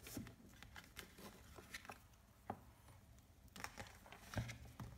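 Faint handling noise of hands turning a pair of rubber-armoured binoculars: soft rubs and scattered light clicks and taps, the sharpest about halfway through and near the end.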